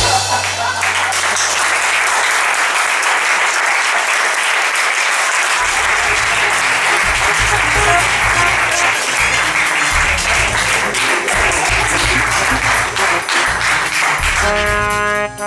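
Audience applauding, a dense crackle of many hands clapping. Music with a low bass line comes in under it about five and a half seconds in and becomes clearer near the end as the applause thins.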